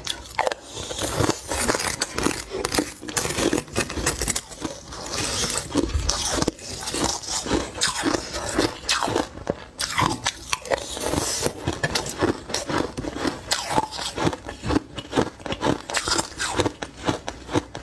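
Close-miked crunching and chewing of mouthfuls of shaved ice, a rapid, continuous crackle. Now and then a plastic spoon scrapes ice from a bowl made of ice.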